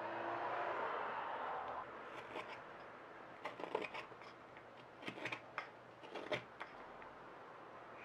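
Straight carving knife shaving olivewood on a spoon: a long, continuous scraping cut at first, then short, crisp slicing cuts in quick clusters of two or three as the handle is pared down.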